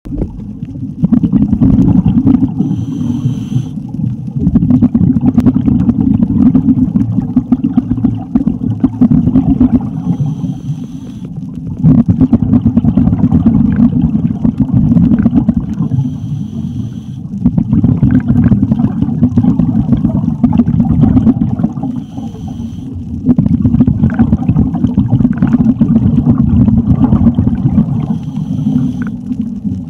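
Underwater sound picked up through a camera housing: a loud low bubbling rumble that breaks about every six seconds for a short high hiss, the rhythm of a scuba diver breathing through a regulator, exhaling bubbles and then inhaling.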